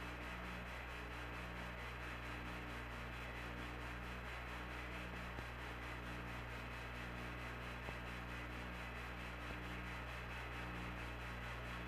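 Steady hiss and low electrical hum of the Apollo 11 air-to-ground radio line with no one talking. A few of the low hum tones break off briefly and come back every second or so.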